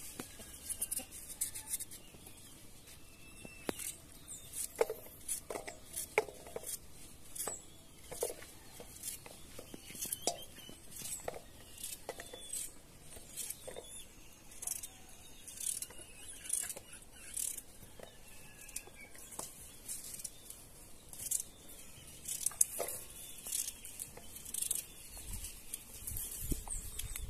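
Small knife slicing a raw carrot held in the hand, giving irregular sharp clicks and ticks as pieces are cut off and drop into a stainless steel bowl.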